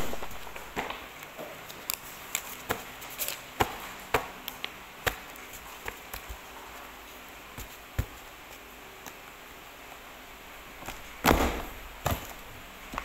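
Loose paper sheets handled and squared up, with a string of sharp taps and rustles as the stack is knocked on the desk. About eleven seconds in comes a loud crunching thud as a two-hole desk paper punch is pressed down through a thick stack of pages, with a second click just after.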